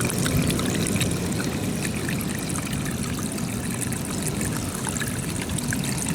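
Floodwater trickling and pouring down a small hole in the rock, a steady watery sound flecked with many small splashes, over a low rumble.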